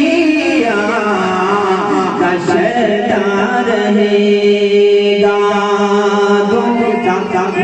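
A man singing a naat (Urdu devotional poem) unaccompanied into a microphone, his voice sliding through ornamented phrases and then holding one long, steady note for the second half.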